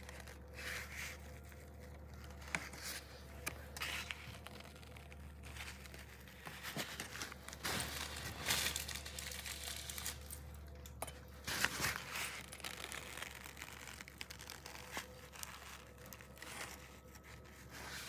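Piping bag filled with cream being squeezed by hand, crinkling softly and irregularly as lines of cream are piped out, over a faint low hum.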